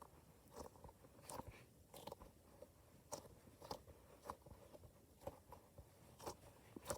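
Dough-filled squishy stress ball being squeezed over and over in the hand, giving faint crackly squishing sounds about every half second.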